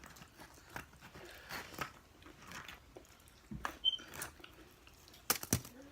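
Close-up eating sounds: chewing and biting into pizza and chicken wings, with scattered small clicks and wet crackles, and two sharper clicks near the end.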